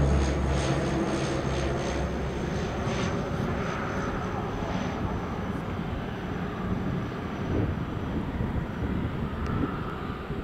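de Havilland Canada Dash 8-100 (DHC-8-102) twin-turboprop airliner climbing out overhead after takeoff. A low propeller drone fades over the first couple of seconds as it pulls away, leaving a broad rushing engine noise that slowly dies down.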